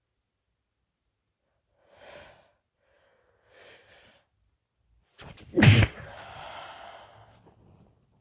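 A woman's sneezing fit: two short, soft breaths, then a sudden loud sneeze a little past halfway, trailing off into a breathy exhale.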